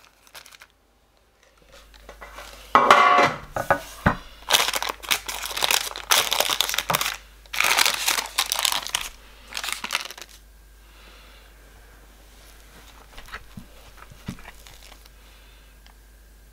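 Baking paper crinkling and rustling in loud, crackly bursts as a large knife is pressed down through a chilled layered slice on a wooden board, with a soft knock of the blade on the board. It goes much fainter for the last several seconds.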